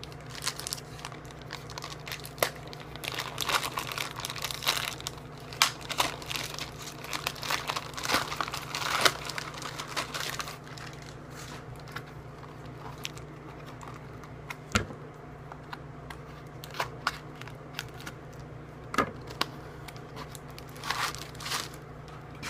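Packaging being unwrapped by hand: wrapping crinkling and tearing. The rustling is dense in the first half, then thins to scattered crackles and a few sharp clicks.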